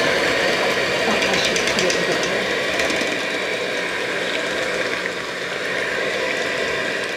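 Electric hand mixer running steadily, its beaters churning raw ground meat and beef consommé in a stainless steel bowl.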